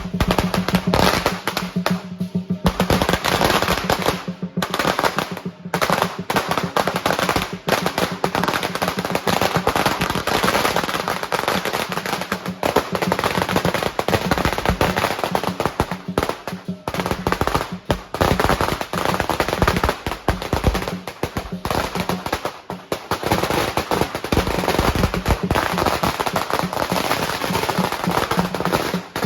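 Strings of Chinese firecrackers going off in a long, dense, rapid crackle, with a few short breaks.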